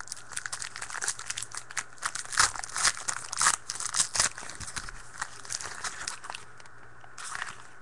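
Foil wrapper of a trading card pack crinkling and tearing as it is opened, a quick run of crackles that thins out after about six seconds, with one more short crinkle near the end.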